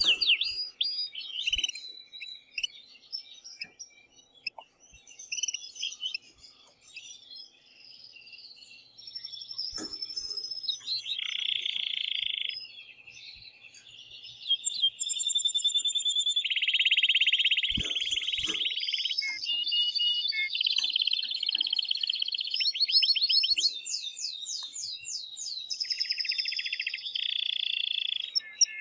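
Male canary singing in an excited breeding-season song of rapid trills, rolls and chirps. The song is broken by short pauses early on, then loud and near-continuous from about halfway. There are a couple of faint knocks partway through.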